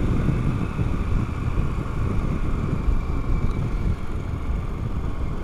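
Harley-Davidson Pan America Special's Revolution Max 1250 60-degree V-twin running as the bike slows gently from cruising speed, with steady wind and road noise over it.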